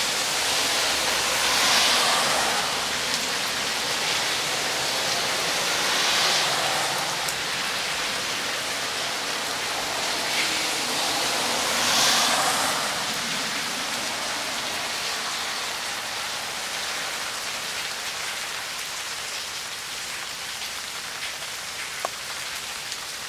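Rain pouring down steadily, swelling louder briefly three times in the first half, with a few sharp drip ticks later.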